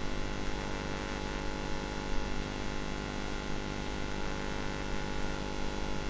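Steady electrical hum with a stack of even tones and a light hiss under it, unchanging throughout.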